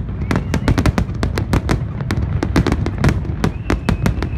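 Aerial fireworks shells bursting in a dense barrage: rapid, overlapping bangs and crackles, several a second, over a continuous low rumble.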